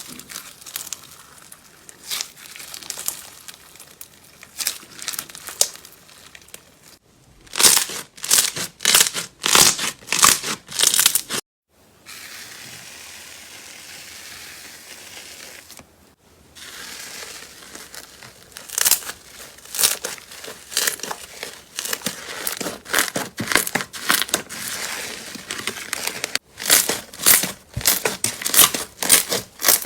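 Slime being worked, in a string of short clips: dense runs of crackling, crinkling pops and squelches, with a stretch of steadier hiss in the middle and abrupt cuts between clips.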